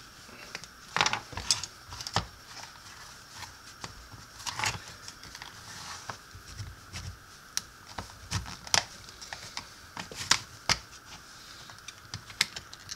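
Irregular sharp clicks, snaps and scraping of hard plastic as the housing of a Jeep airbag clock spring is pried apart with a thin pick, its small plastic welds cracking loose, over a faint steady hum.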